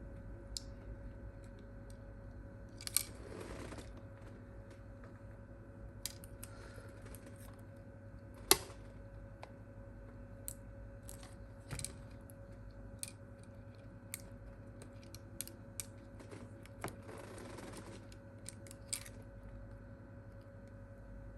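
Scattered small clicks and taps of hands and tools on phone parts while a replacement screen is fitted to a smartphone, with one louder snap about eight seconds in and a couple of brief rustles. A steady faint hum runs underneath.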